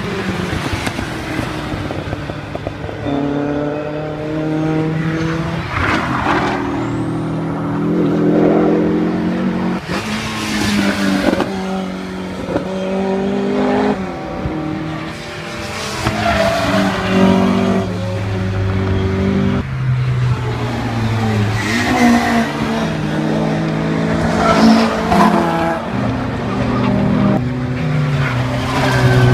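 Rally car engines revving hard as several cars drive past in turn. Each engine note climbs and drops back at each gear change, with short louder surges every few seconds.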